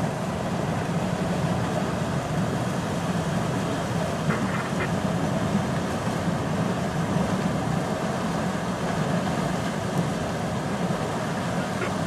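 Steady din of a large wildebeest herd crossing a river: massed grunting calls mixed with the splashing of many hooves through water.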